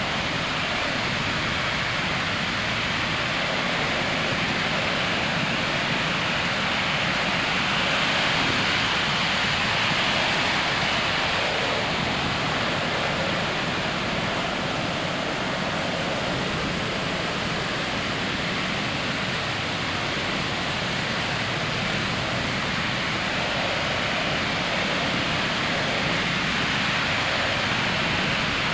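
Ocean surf breaking on a beach: a continuous wash of waves, swelling slightly about a third of the way in.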